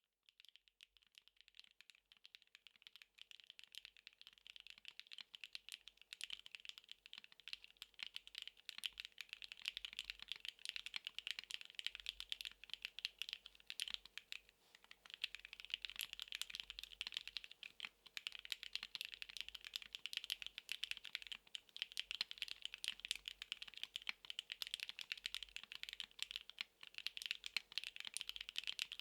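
Continuous typing on a NEO70 mechanical keyboard with HMX Glaze Jade linear switches, PBT double-shot keycaps and an aluminium plate: a dense stream of key presses and bottom-out clacks. The typing starts lighter and grows louder and denser over the first few seconds, then runs on steadily.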